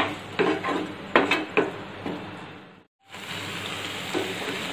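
A wooden spatula stirring and scraping a thick mix of grated bottle gourd and condensed milk in a non-stick pan, a quick series of strokes over the first two seconds. After a brief drop-out just before three seconds, the mixture sizzles steadily as it cooks down and thickens.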